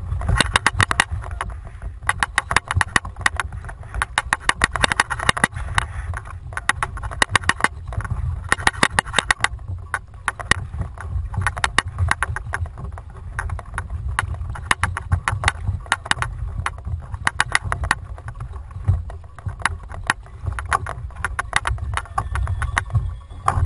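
Fishing reel clicking rapidly in bursts as the angler cranks in line on a hooked ono, with a low wind rumble on the microphone.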